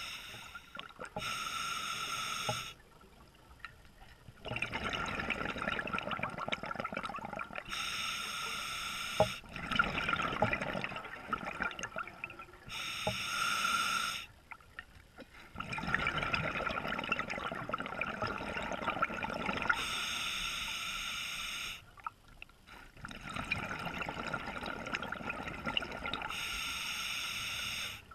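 Scuba diver breathing through an open-circuit regulator underwater: a short hissing inhalation, then a longer rush of exhaled bubbles, in a regular cycle about every six seconds.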